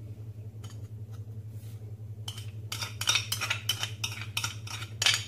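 A small ceramic bowl tapping and clinking against the rim of a ceramic mixing bowl and the wire whisk in it as chopped onion is knocked out into beaten eggs. There are a few light clinks, then a quick run of them, about three or four a second, over the last three seconds, with a steady low hum underneath.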